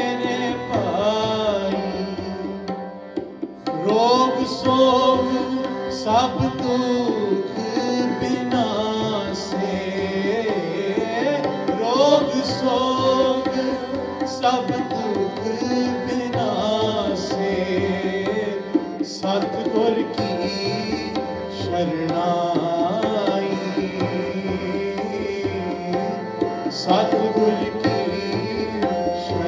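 Sikh kirtan: a singer drawing out long, sliding melodic lines over a sustained harmonium and tabla keeping a steady rhythm.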